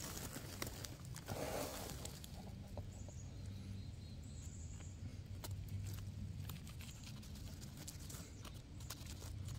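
Faint rustling with scattered light clicks and snaps, from a hen of the woods mushroom being handled and pulled from the leaf litter.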